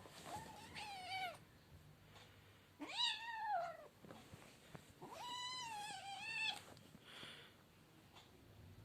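A domestic cat meowing three times in drawn-out calls, the last one the longest, each falling in pitch at its end.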